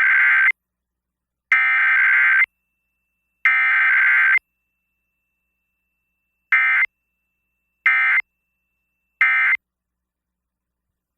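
Emergency Alert System SAME data bursts broadcast over FM radio: three one-second bursts of raspy two-tone digital screech (the header), a pause, then three shorter bursts (the end-of-message code), with no attention tone, as in a weekly test.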